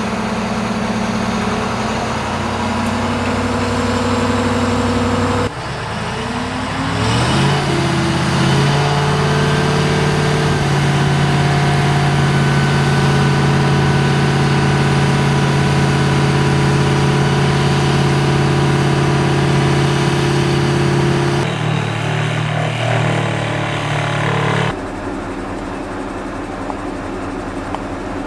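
Truck-mounted crane's diesel engine running. About six seconds in it revs up and holds a steady higher speed, as a crane's engine does to drive the hydraulics that move the boom and work basket. It drops back down about 21 seconds in.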